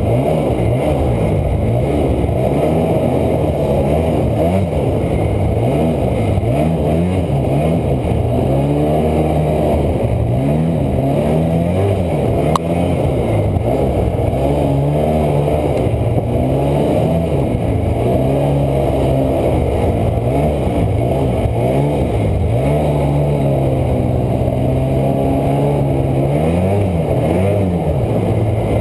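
Snowmobile engine running under load, its pitch rising and falling every couple of seconds as the throttle is worked through deep snow. A single sharp click sounds about twelve seconds in.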